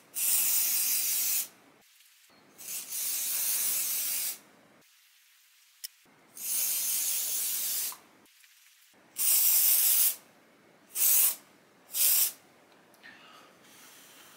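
Aerosol can of foot-spray powder spraying in bursts onto a part: four sprays of a second or more each, then two short puffs.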